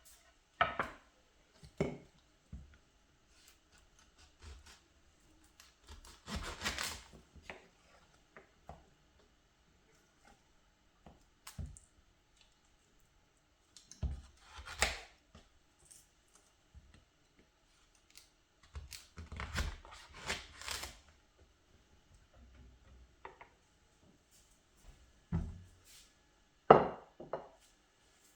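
Kitchen food-preparation handling sounds: scattered knocks and clicks of utensils and dishes, with a few short scraping clusters, and one sharp, louder click near the end.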